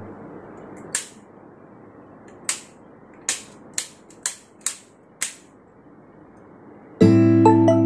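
A run of seven sharp, single clicks over a faint hiss, the kind made by wall light switches being flicked as the room's lights come on.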